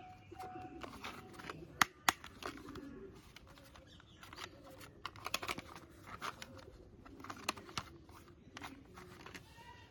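Hard plastic toy car parts clicking and knocking as they are handled, in a scattering of sharp clicks with a cluster of them around the middle.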